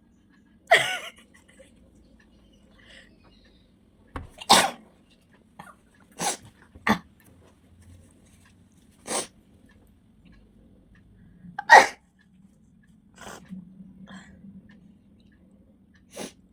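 A person sneezing again and again, about half a dozen sharp sneezes a second or more apart, with a couple of fainter ones near the end; the sneezes are brought on by tickling the nose.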